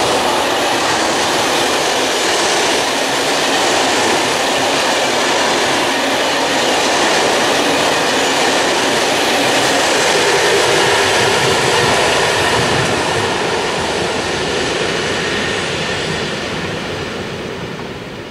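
An electric-hauled passenger train of Corail coaches passing at speed: a loud, steady rush of wheels on rail. It fades away near the end as the last coaches pull off.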